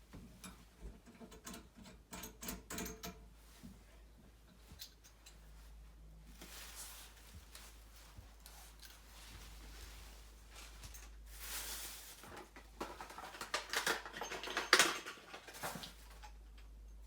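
Hands working on tap fittings and tools: scattered small clicks, scrapes and rustles, with a busier run of scraping and clicking about three-quarters of the way in and one sharp click near the end, the loudest.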